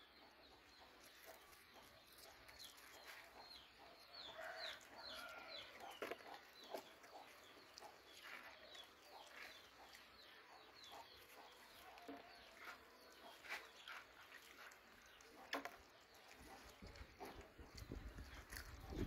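Dogs eating together from a shallow plastic dish: faint chewing, lapping and clicks of teeth and muzzles against the dish. A run of short, high, falling peeps comes a few seconds in, and a low rumble near the end.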